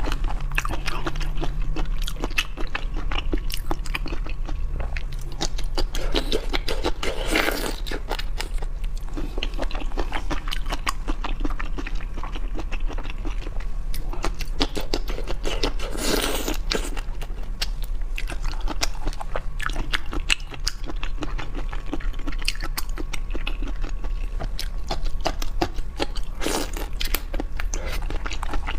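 Close-miked mouth sounds of someone eating seafood: continual crunching and wet chewing, with a few louder, longer bursts about 7, 16 and 26 seconds in.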